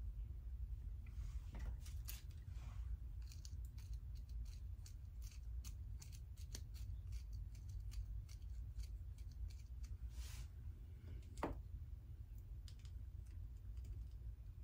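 Small, irregular clicks and a few short swishes and rustles from hands handling acrylic-pouring tools and paint cups, with one brief squeak, over a low steady hum.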